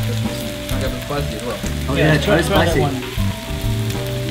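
Pork belly and kimchi sizzling on a hot barbecue grill pan, under steady background music. A brief voice comes up about two seconds in.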